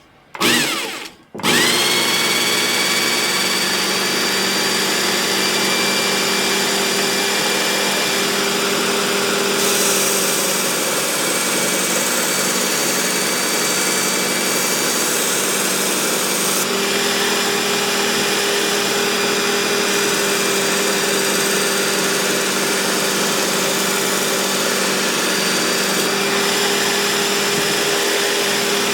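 Work Sharp Ken Onion Edition Mk II belt sharpener with its blade grinding attachment. After a brief burst it spins up with a rising whine about a second and a half in, then runs steadily, driving a fine 12,000-grit belt that polishes a cleaver's edge.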